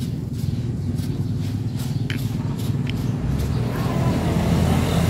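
Low, steady outdoor rumble that swells a little after about three and a half seconds, with two faint short high chirps in the middle.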